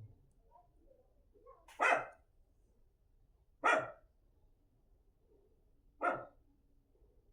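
A dog barking: three single barks spaced about two seconds apart.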